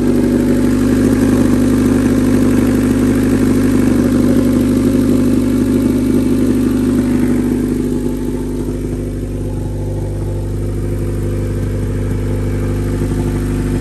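Honda Civic four-cylinder engine idling steadily in neutral, freshly started after the transmission was reinstalled. Its level drops a little about eight seconds in.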